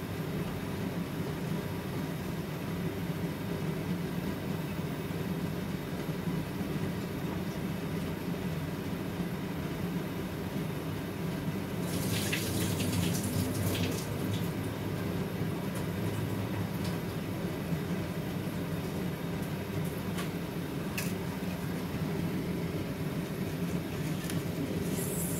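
A large pot of stock with rice just added, boiling on the stove: steady bubbling, with a louder stretch of bubbling and spitting about twelve seconds in.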